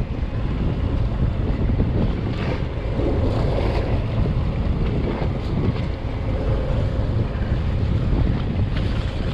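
Steady wind buffeting the microphone on a small fishing boat at sea, with waves washing against the hull.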